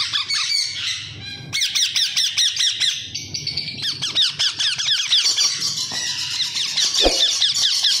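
A group of young lutino Indian ringneck parakeets squawking together: rapid, overlapping high calls, each sweeping downward in pitch, several a second, with a brief lull about a second in. A single soft thump sounds about seven seconds in.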